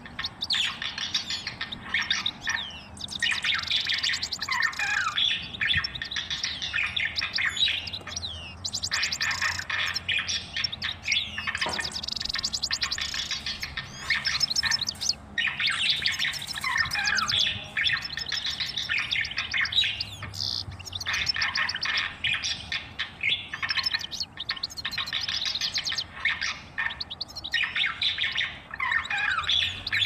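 Budgerigars chattering: a fast, nearly unbroken warble of chirps, clicks and short gliding whistles.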